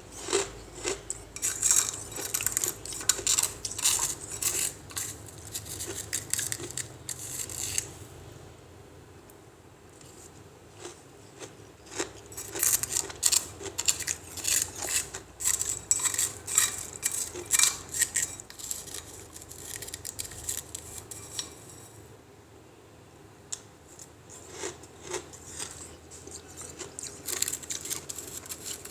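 Freezer ice crunching between the teeth: three spells of rapid, crisp crunches and cracks, separated by short quieter pauses.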